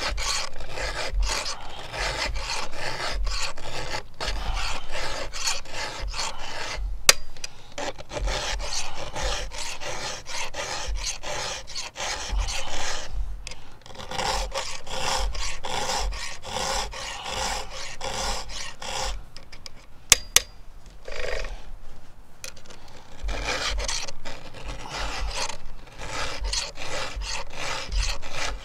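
Chainsaw file rasping across the cutters of a 3/8-pitch chain on a Stihl MS661's bar, in quick repeated strokes with a couple of short pauses. Two or three sharp clicks stand out.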